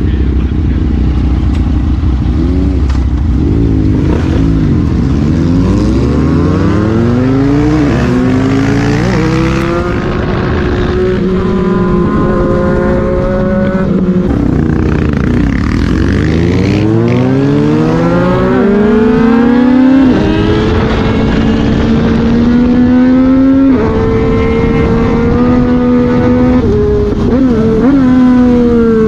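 2021 Yamaha MT-09's 890 cc inline three-cylinder engine under way, accelerating twice with a rising engine note that falls back between pulls. It then holds a higher, fairly steady note for the last part.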